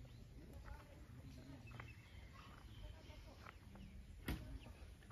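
Faint open-air ambience: scattered short bird chirps and faint distant voices, with one sharp click about four seconds in.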